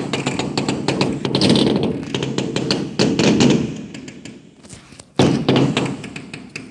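Fireworks going off: rapid crackling and popping over a rumble of bursts, with a sudden loud burst about five seconds in that dies away.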